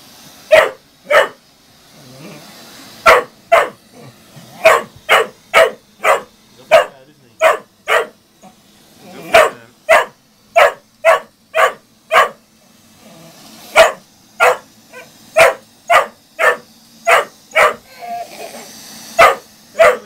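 Spaniel barking over and over at a robotic vacuum cleaner: sharp single barks, about one to two a second, in runs broken by short pauses.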